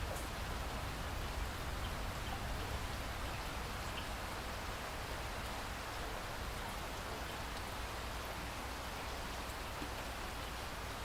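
Steady rainfall, an even hiss with scattered drops ticking on a surface.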